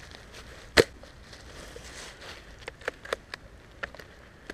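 Dry leaf litter and twigs crackling under a prone body shifting on the forest floor. There is one sharp, loud snap about a second in, and a scatter of lighter crackles a couple of seconds later.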